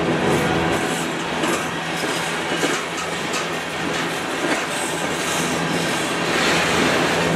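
Freight train's covered hopper cars and tank car rolling past close by: steel wheels on the rails making a steady rumble, with clacks over the rail joints.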